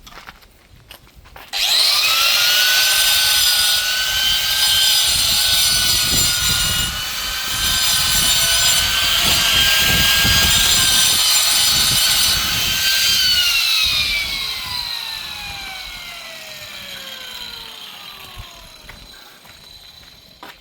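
Electric angle grinder starting up with a sudden high whine and cutting marble stone for about eleven seconds, then switched off and winding down with a steadily falling whine.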